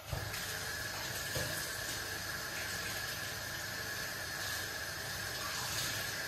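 Sliced vegetables sizzling and steaming in a stainless-steel pot on the hob: a steady watery hiss, with a thin steady high whine over it that stops near the end.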